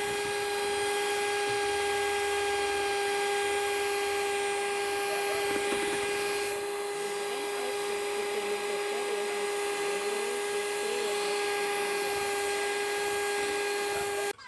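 Small electric motor of a kitchen mixer running steadily at high speed with a steady whine, switched off abruptly near the end.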